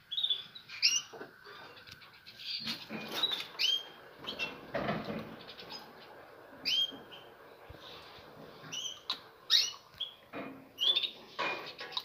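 Caged songbirds giving short, repeated chirps, with a few knocks from handling near the cage.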